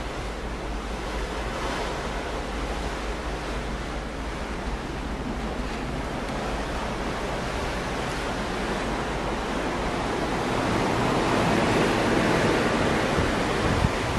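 Sea water rushing past the hull of a cruise ship under way, with wind on the microphone; it grows louder over the last few seconds.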